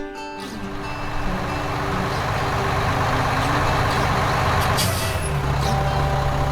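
A heavy vehicle's engine running steadily, with a hiss over it.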